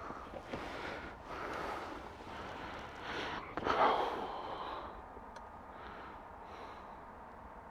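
A person breathing close to the microphone: a few noisy breaths, the loudest a little before halfway, then fading to a faint hiss.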